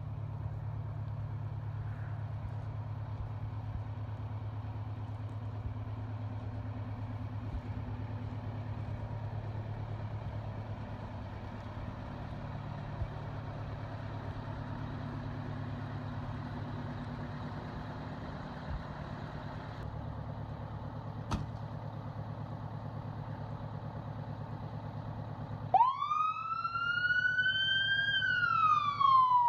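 A 1985 Sutphen pumper/tender fire truck's engine idling steadily, with a single click about two-thirds through. Near the end the truck's siren starts, rising quickly to a loud wail and beginning to fall.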